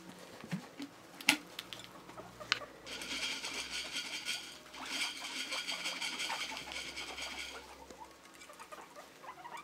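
Guinea pigs wheeking loudly in a long run of repeated high squeals, the begging call for food. Two sharp clicks come before the calls start, about a second apart.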